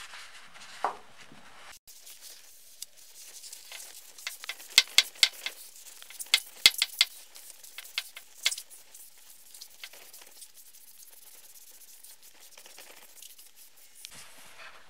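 Cloth rag wiped over a steel axe head held in gloved hands, scratchy rubbing with a run of sharp clicks and crackles in the middle. There is a brief falling squeak about a second in.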